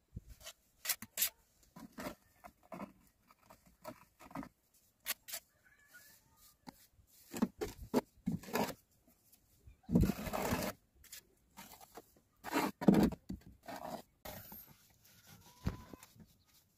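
Small trowel scraping and knocking as wet plaster is spread and smoothed in a van's plastic dashboard cavity: irregular short scrapes and taps, with louder scrapes about ten and thirteen seconds in.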